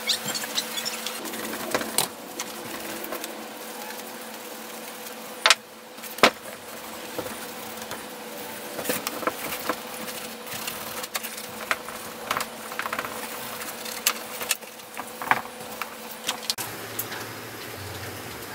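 Rag and paper towel rubbing and handling over the cast aluminium housing of a vintage Porter-Cable belt sander, with scattered light clicks and two sharp knocks about five and a half and six seconds in. A steady low hum runs underneath.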